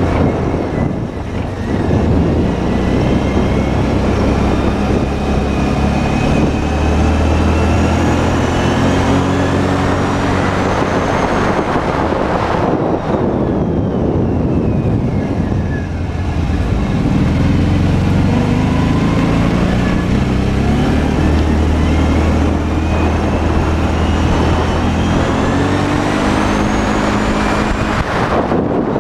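Arctic Cat 650 V-Twin ATV engine running as the ATV is ridden, its pitch rising and levelling off, easing down about twelve seconds in and climbing again a few seconds later, over a steady rushing noise.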